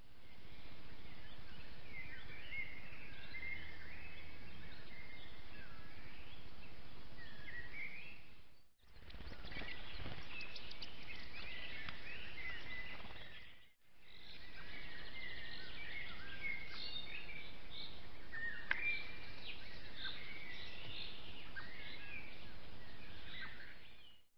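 Several wild birds singing and calling in many short chirping, warbling phrases over a steady hiss from the trail camera's microphone. The sound drops out briefly twice.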